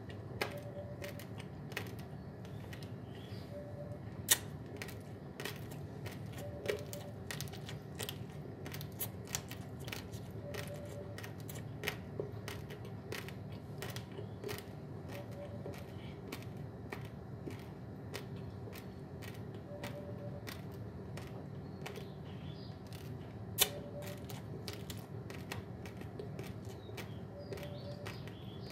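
Raw basmati rice grains crunching as they are chewed: a run of irregular sharp clicks, two of them much louder.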